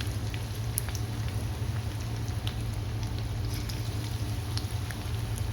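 Chicken onion fritters deep-frying in hot oil: a steady sizzle with scattered small pops and crackles, over a steady low hum.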